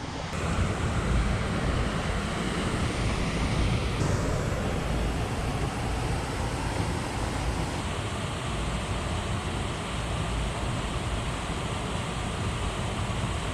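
Steady rush of wind and water noise, heaviest in the low end, with wind buffeting the microphone; no engine note is heard.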